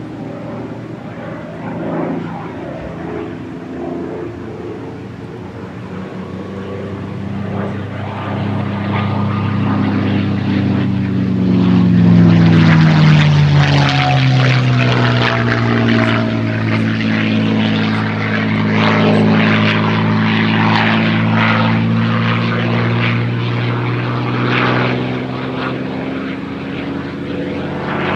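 P-51 Mustang's V-12 Merlin engine and propeller in a flyby, growing louder as it approaches, peaking about 12 seconds in, then dropping in pitch as it passes and stays loud with a rough crackle.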